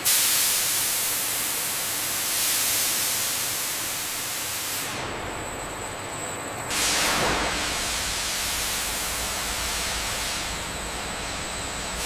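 Steady hissing of steam venting. About five seconds in, a low hum joins the hiss, and a second or two later there is a louder gush of hiss.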